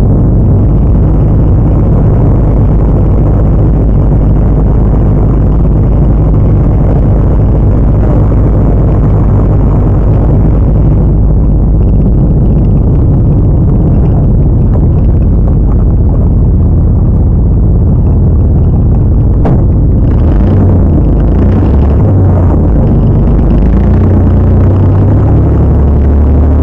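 Off-road truck engine running hard and loud through mud, a steady low drone whose pitch shifts and steps up and down about twenty seconds in.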